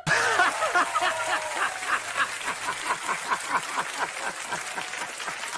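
A man laughing hard and without pause, a rapid run of about five laughs a second that eases slightly toward the end.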